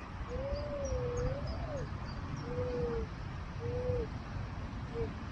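Minelab CTX 3030 metal detector sounding its target tone: one long wavering tone, then shorter repeated tones at about the same pitch as the coil is swept back and forth. The signal is strong because the target is shallow, picked up well above the ground.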